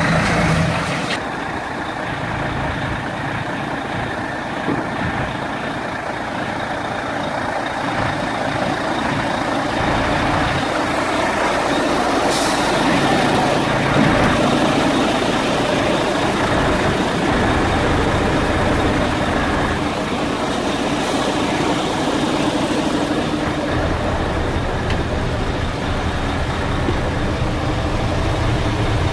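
Mercedes-Benz Actros 4141 tipper's V6 diesel engine idling steadily, with a brief hiss about twelve seconds in.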